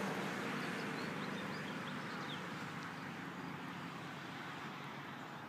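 Outdoor background: a steady rush of distant traffic that slowly fades, with a few faint bird chirps.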